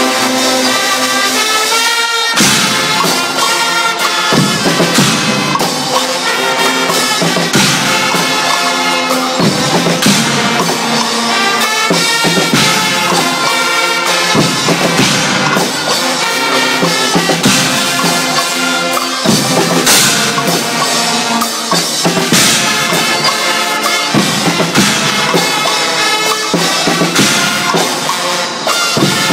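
A Swiss Guggenmusik carnival band playing loud brass, with trumpets, trombones and sousaphones over a drum kit with cymbals. The drums come in about two seconds in, with a steady beat and cymbal crashes under the horns from then on.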